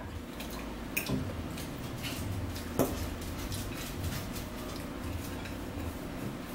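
Metal forks clinking and scraping on plates and a salad bowl during a meal: a few light, scattered clicks, the sharpest about three seconds in.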